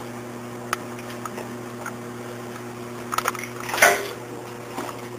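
Handling noise from a power cable being plugged in: a sharp click, a few small ticks and a louder rustle and scrape near the end, over a steady low electrical hum.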